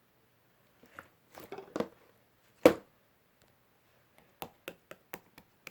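A few soft clicks and rustles, then one loud knock, followed by a quick run of sharp clicks at about four a second near the end.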